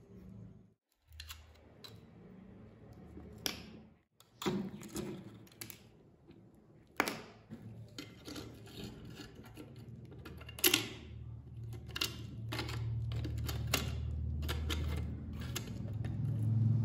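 Metal tweezers clicking, tapping and scraping against a dirt-crusted model car body, with scattered sharp ticks, over a low rumble that grows louder near the end.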